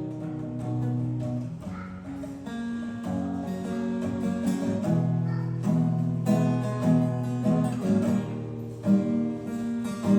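Music played on guitar, with sustained notes that change every second or so.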